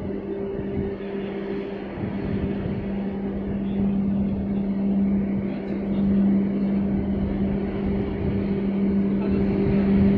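Steady low machinery hum from the large container ship MOL Truth passing close by, over an even rushing noise, growing slightly louder as she goes by.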